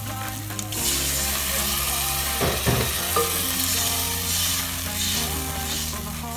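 Blended tomatoes going into onions frying in hot oil, with a loud sizzle that jumps up about a second in. A wooden spoon stirs and scrapes the pan, and background music plays underneath.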